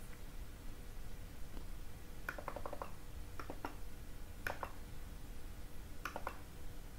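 Faint clicking of a computer mouse and keyboard: a quick run of about five clicks about two seconds in, then single and paired clicks, over a low steady hum.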